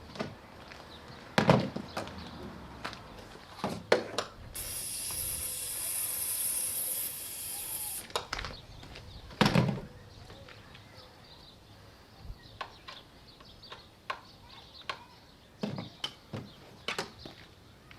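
Knocks and clunks of parts or tools being handled, the loudest twice, with a steady hiss lasting about three and a half seconds partway through.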